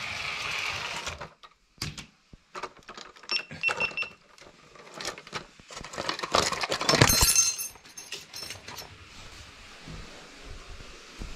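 LEGO 9V train motor and wheels running on plastic track, cutting off abruptly about a second in as the train stops. Then a string of clicks, knocks and rattles as a plastic yogurt cup and metal spoon are lifted off the wagon and handled, with a louder clatter about seven seconds in.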